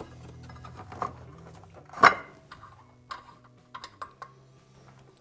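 A few scattered metallic clinks and knocks, the loudest about two seconds in, as a CVT drive belt is worked back onto the aluminium clutch sheaves of a Can-Am Maverick X3 Max by hand.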